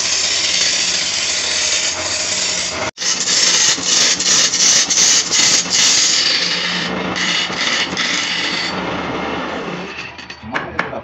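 A tool pressed against spinning wood on a lathe, cutting and scraping with a steady hiss. It breaks off for an instant about three seconds in, then fades near the end into a few sharp knocks.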